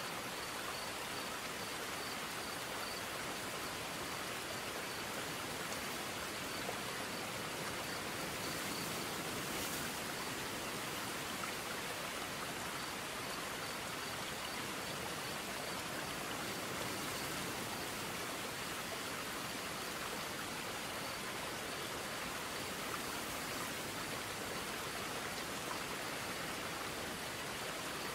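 Waterfall and creek: a steady, even rush of falling water.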